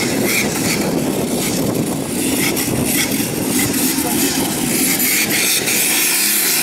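Off-road buggy's engine running hard under load as it climbs out of a mud pit, a dense mechanical noise with clattering clicks; near the end the engine settles into a steady pitched drone.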